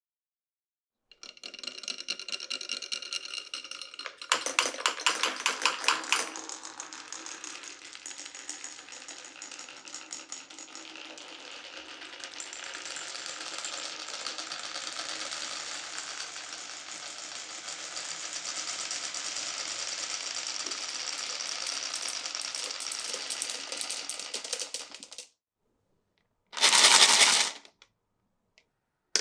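Glass marbles rolling and clattering down a wooden marble run, with a fast, loud run of clicks a few seconds in, then a steady rolling sound for most of the time; near the end, a short loud clatter of about a second.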